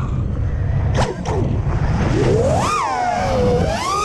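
FPV quadcopter's motors whining under heavy wind rush on the onboard microphone. The whine nearly drops out at first, a sharp swish comes about a second in, then the pitch climbs steeply, falls away and climbs again near the end as the throttle is punched.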